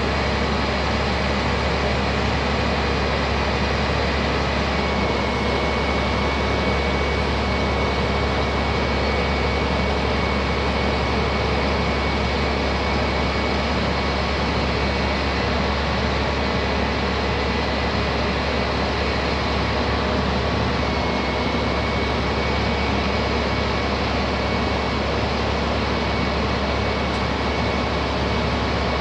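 Bucket truck's 10.8-litre six-cylinder diesel running steadily while the Terex Hi-Ranger boom is operated, with a thin high whine throughout.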